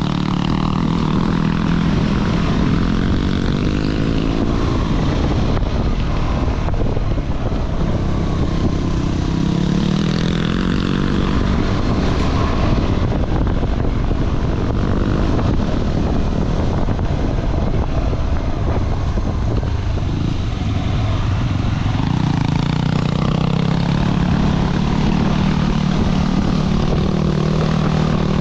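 KTM 390 Adventure's single-cylinder engine running as the motorcycle is ridden over an off-road trail, under a rough, continuous rumble. The engine note is clearest at the start and again for the last several seconds, and less distinct in between.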